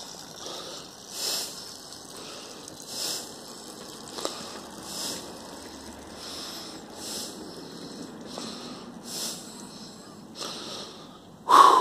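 A man breathing close to the microphone, a breath about every two seconds, over a faint steady rushing noise, with a brief louder sound near the end.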